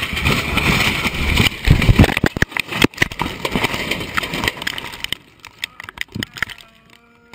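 Small plane crashing, heard from inside the cockpit: a loud rush of noise broken by a rapid string of cracks and bangs that thin out and fade after about five seconds.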